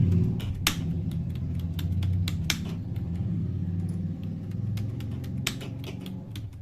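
Keystrokes on a Dell KB216 membrane keyboard, irregular clicks as keys are typed, over a steady low rumble that fades near the end.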